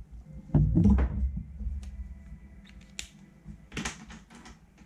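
Desk handling sounds: a dull knock a little under a second in, then a few light clicks and taps as drawing tools are handled and set down.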